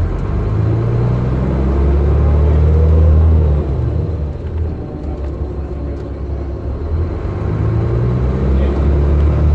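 Optare Spectra bus on a DAF DB250 chassis, heard from inside the saloon: the engine pulls and rises in pitch, eases off about three and a half seconds in as the ZF gearbox changes gear, then builds again near the end.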